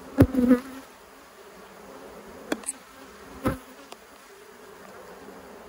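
Honey bees buzzing in a steady hum around an open hive. There is a short loud burst right at the start and a few sharp knocks about two and a half and three and a half seconds in.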